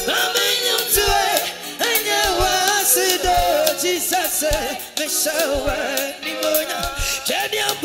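Live gospel music: a male lead singer singing through a microphone over a band, with a steady drum beat underneath.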